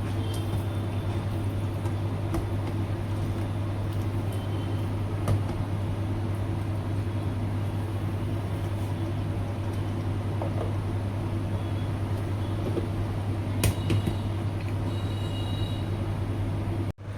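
A steady low hum over a background hiss, broken by a sharp click about five seconds in and another near the end.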